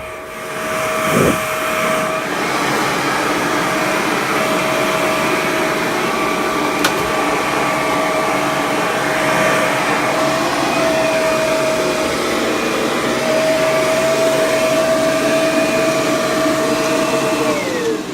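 Kirby G4 upright vacuum cleaner's motor running with the hose on the blower port, blowing air in a steady hum. Near the end its pitch falls as the motor winds down.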